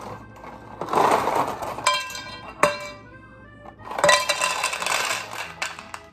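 Dry rigatoni rattling out of a cardboard box into a frying pan in two pours, about a second in and again about four seconds in, with background music.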